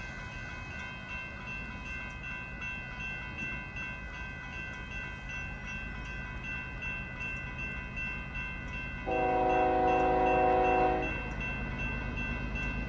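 Union Pacific freight train approaching with a steady low rumble. About nine seconds in, the lead GE ES44AC locomotive sounds its multi-chime air horn in one long blast of about two seconds.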